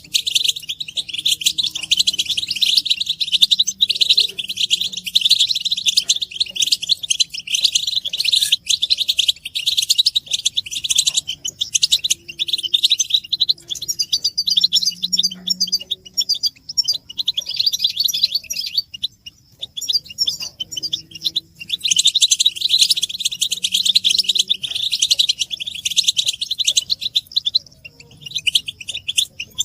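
European goldfinches twittering, a dense chorus of rapid high chirps from several birds that thins briefly twice. This is the excited courtship and readiness chatter used to stir a silent male goldfinch into song.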